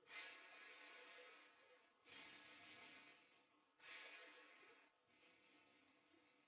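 Near silence with faint breathing close to a microphone: four soft breaths, each a second or two long.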